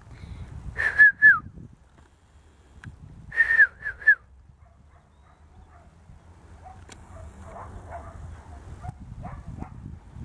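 Pomeranian puppy giving short high-pitched yips, each ending in a downward hook: two about a second in, then three more around three and a half seconds in.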